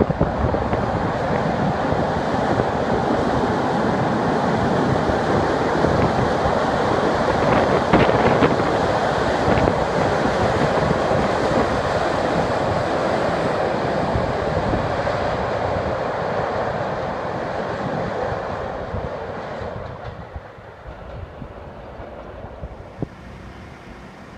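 Orange regional train running across a steel truss railway bridge: a steady, loud noise of the wheels and bridge that falls away about 20 seconds in, leaving quieter background noise.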